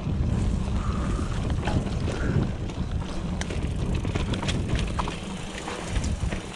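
Mountain bike descending a rough trail: wind buffeting the microphone, with the frame and parts rattling and clicking over bumps.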